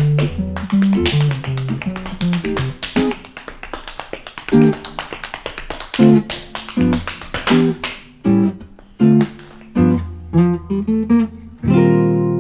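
Tap shoes striking a wooden dance floor in quick rhythms over accompanying music with short plucked low notes; near the end the music lands on a held chord that rings on and fades.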